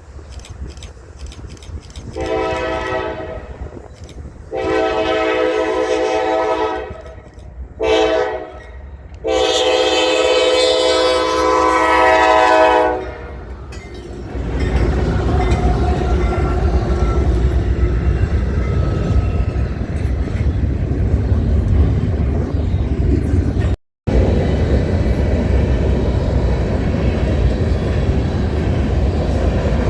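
Locomotive horn sounding the long-long-short-long grade-crossing signal, then the train running past close by, a steady loud rolling noise of wheels and railcars.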